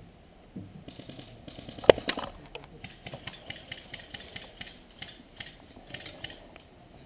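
Running footsteps with gear and the gun rattling in a quick, irregular patter, with one sharp loud click about two seconds in.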